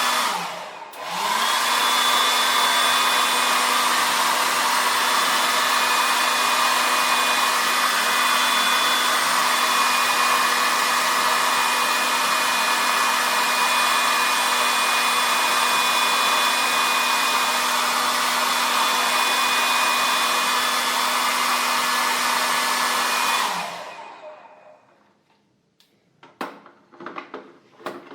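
Hair dryer blowing steadily, its motor giving a steady hum under the rush of air. About a second in it briefly drops and spins back up. Near the end it is switched off and winds down, followed by a few clicks and knocks.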